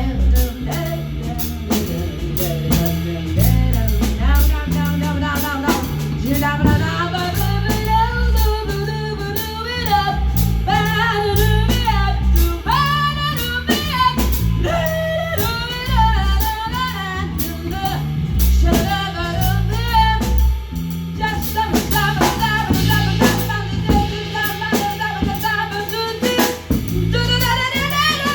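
A live band playing a song: a singer's voice over drum kit, bass and guitar.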